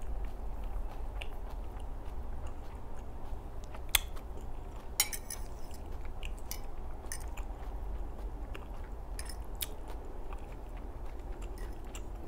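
A person chewing a mouthful of cream pasta with wet, smacking mouth sounds. A metal fork clicks a few times against the ceramic bowl, most sharply about four and five seconds in, over a steady low hum.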